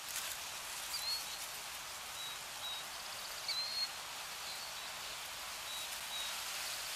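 Forest ambience laid under the closing logo: a steady rain-like hiss with short, high bird chirps dotted through it. It fades out at the very end.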